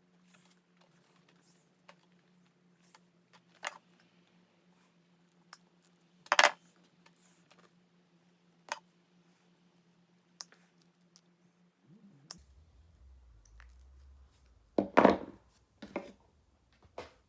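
Scattered clicks and taps of small objects being handled, loudest about six seconds in and in a quick cluster near the end, over a faint steady hum that drops to a lower hum about twelve seconds in.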